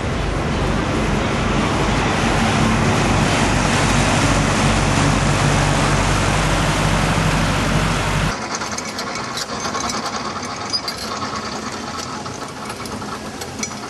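A boat engine running steadily with a low, even hum, which stops abruptly about eight seconds in, leaving wind noise and scattered small clicks.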